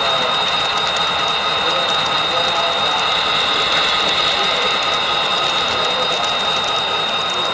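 Model passenger train cars rolling past on the layout track: a steady, fine metallic rattle of small wheels on rail, with a steady high whine.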